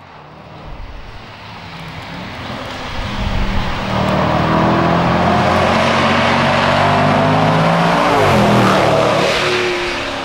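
2018 Range Rover SVR's supercharged V8 approaching and passing by on a wet road, with tyre hiss. The engine note builds over the first few seconds, holds steady and loud, then drops in pitch as the car goes past about eight seconds in and begins to fade.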